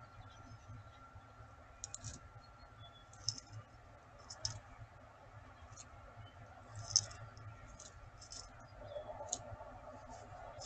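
Scattered small clicks and ticks of nest-box gravel as a peregrine falcon shuffles and settles onto her eggs. About a dozen irregular ticks over a faint steady background.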